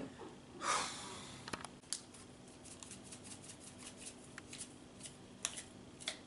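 Kitchen handling noises: a short rustle about a second in, then scattered light clicks and taps.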